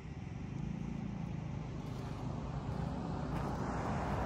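A motor vehicle going by, a steady rumble that slowly grows louder toward the end.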